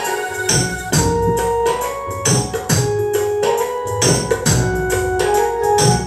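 Music with a drum beat and a keyboard or organ melody, played through a home-built 4-channel 4440 IC amplifier fed over Bluetooth.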